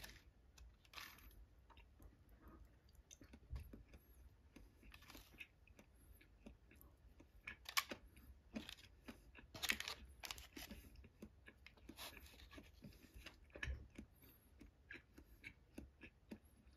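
Quiet close-up eating sounds: soft chewing with scattered small clicks, and two sharper clacks about eight and ten seconds in as disposable wooden chopsticks knock against the thin wooden bento box.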